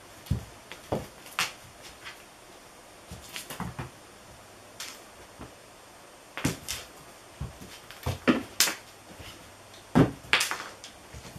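A cat jumping and pouncing on a wooden floor: irregular thumps of paws landing, with lighter clicks and brief swishing rustles in between. The loudest thump comes about ten seconds in.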